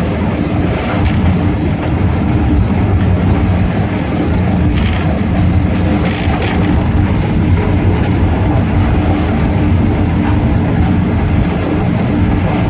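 Passenger train running along the track, heard from aboard: a steady, loud rumble of wheels on rails with a low hum, and a few sharper clacks about five and six and a half seconds in.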